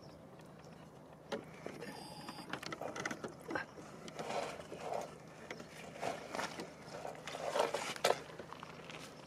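Irregular rustling, scraping and small knocks as a landing net and fabric fish sling are handled around a barbel, starting about a second in.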